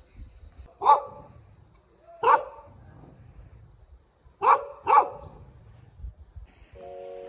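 A dog barking at a person walking past: four sharp barks, one about a second in, one a little over a second later, then two quick barks close together. Music comes in just before the end.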